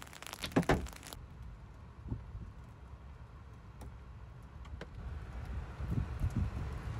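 Wind buffeting the microphone as a low rumble that swells near the end, with a cluster of sharp ticks in the first second and a few scattered ticks after.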